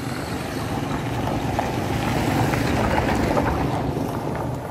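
A motor vehicle passing on the road, its noise swelling and then fading, with a few light rustles from leaves being picked.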